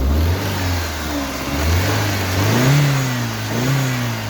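BMW E46 316's N42 four-cylinder petrol engine running rough just after a hard cold start, its revs rising and falling unevenly a few times. It is misfiring and not yet running on all four cylinders.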